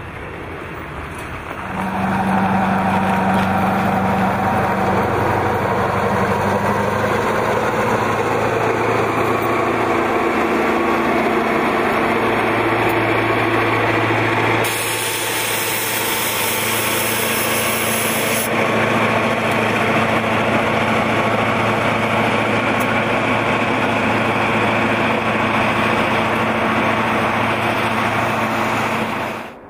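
Norfolk Southern diesel-electric freight locomotives passing at close range, their engines running with a steady, deep hum. A loud hiss joins in for a few seconds in the middle.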